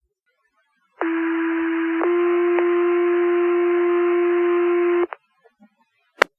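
Two-tone sequential fire paging tones over the dispatch radio: a steady tone of about one second, then a slightly higher tone held for about three seconds. This is the page-out that sets off the volunteer firefighters' pagers. A single sharp radio click follows about a second later.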